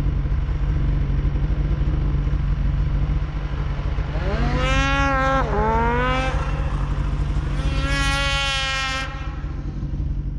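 Snowmobile engines running with a steady low drone. About four seconds in, one sled revs up, drops in pitch as it passes, then climbs again, and near the end it holds a high steady rev for a second or so.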